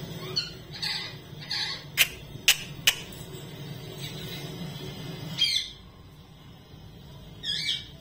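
Indian ringneck parakeet giving a run of short calls, then three sharp clicks about two to three seconds in, which are the loudest sounds. Two longer calls come later, one past the middle and one near the end.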